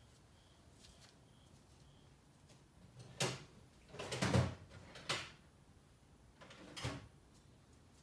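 Knocks and rattles of tools or other hard objects being handled and moved about at a workshop shelf, in four short bouts in the second half, the longest and loudest just after four seconds in.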